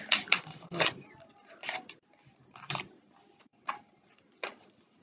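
Sheet of paper being folded and creased by hand for origami: crisp crinkles and rustles, a quick cluster in the first second, then single crinkles about once a second.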